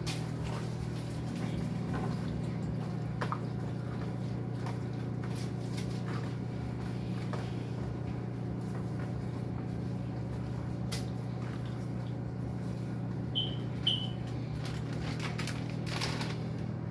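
Steady low hum of a running kitchen appliance, with scattered light clicks and clinks and two short high beeps about thirteen and fourteen seconds in.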